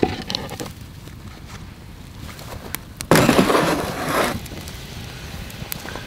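A sudden hiss and splutter lasting about a second, starting about three seconds in, as water meets a hot cooking pot and flashes to steam. Scattered small clicks of a wood fire are heard around it.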